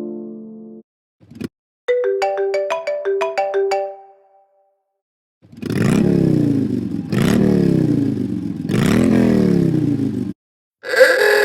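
iPhone alarm tones playing back to back. The end of one tone fades out, then comes a short click and a quick plucked-note melody. After a pause, three identical blocks of a tone sweeping up and down, and near the end a bell-like ringtone starts.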